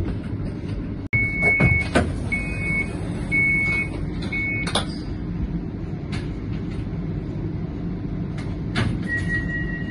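Interior of a CAF Urbos 100 tram standing at a stop: a steady low hum, with four short beeps of the door warning signal about a second apart and a couple of sharp knocks. A single long steady beep starts near the end.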